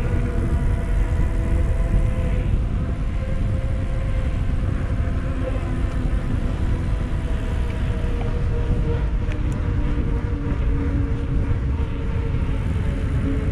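Wind rushing over the microphone of a riding cyclist's camera, a steady low rumble, with a faint steady hum underneath.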